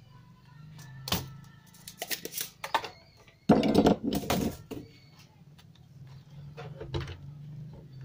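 A sharp snap from a spring-loaded desoldering pump, then knocks and clatter as a CRT TV's circuit board is worked on and handled, over a low steady hum.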